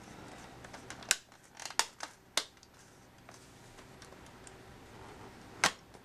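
Sharp plastic clicks as the snap-in decorative cover above a Dell Inspiron 2650 laptop's keyboard is pressed into place: three clicks in the first two and a half seconds. Near the end comes one louder click, as the laptop's lid is shut.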